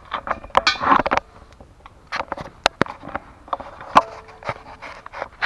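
Metal hand tools and parts clicking and knocking in scattered sharp strikes, the loudest about four seconds in.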